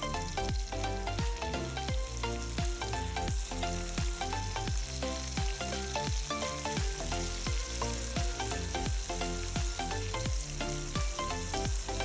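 Food sizzling as it fries in a pan, under background music with a steady beat.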